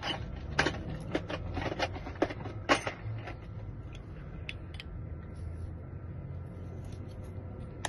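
Sharp metal clicks and small taps from handling a freshly picked Schlage lock cylinder and its tools as it is taken apart for rekeying. The clicks come thick for the first three seconds or so, then only now and then.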